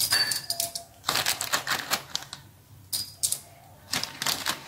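Metal pestle pounding whole spices, cardamom pods among them, in a metal mortar: quick runs of sharp metallic strikes, some ringing briefly.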